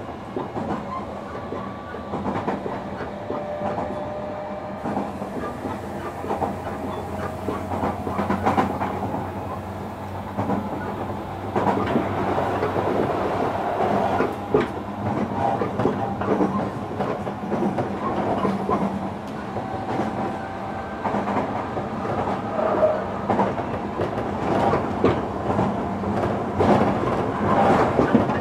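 JR Kyushu 305 series electric train running, heard from inside a motor car: steady tones from its Hitachi VVVF inverter and permanent-magnet synchronous motors, over running noise and irregular clicks of the wheels on the rails. It grows somewhat louder about twelve seconds in.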